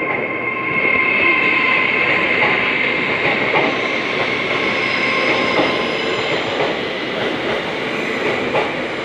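LNER Class 800 Azuma train moving past along the platform, with a steady rolling noise of wheels on rail, a high steady whine and faint clicks of the wheels over the rail joints.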